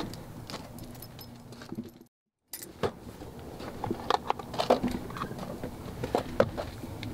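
Scattered light clicks and metallic clinks of small objects being handled. The sound drops out to dead silence for about half a second a couple of seconds in, then the clinking resumes.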